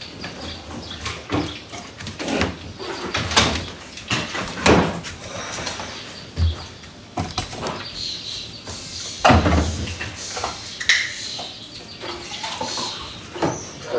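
A series of irregular knocks, thuds and scrapes of household handling, such as a door or cupboards being opened and shut. Two heavier thuds come about five and nine seconds in.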